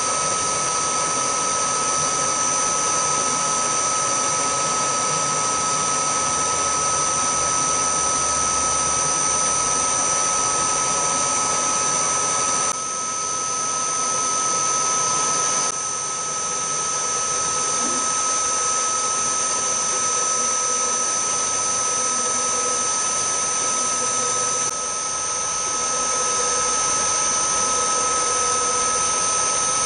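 Milling machine spindle running steadily with a high whine while a twist drill bores holes in an aluminium dial. The sound drops briefly three times.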